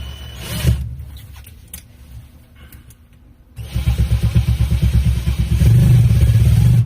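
Power drill driving a self-drilling screw into sheet metal, starting about three and a half seconds in and running with a fast pulsing judder until it stops at the end, after a few knocks of handling.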